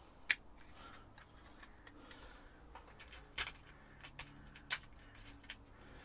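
Faint, scattered clicks and light rattles of small plastic parts being handled: automotive blade fuses and a 12-volt fuse box. The clearest click comes just after the start, with a few more from about three and a half seconds on.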